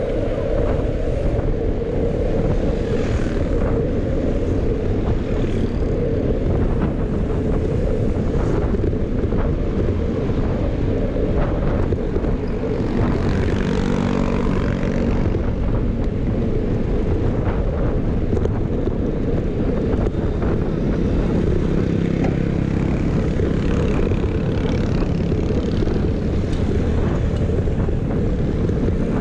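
Steady low rumble of wind buffeting the microphone while riding a bicycle along a road, with a few faint clicks. A low hum with a steady pitch comes up about halfway through and again later.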